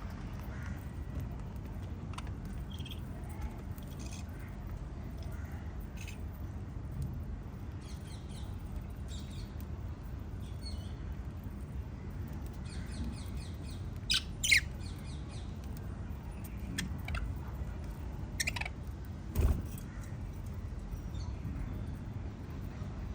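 Lovebirds chirping in short, scattered high calls over a steady low hum, with two sharp, loud calls a little past the middle. A brief thud follows a few seconds later.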